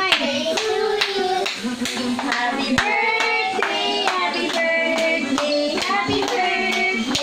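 A group of children singing a birthday song together, with hands clapping along.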